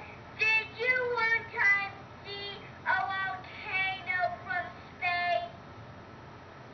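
A young child's high voice asking a question in several short phrases, played back through a laptop's small speaker, ending about a second before the end.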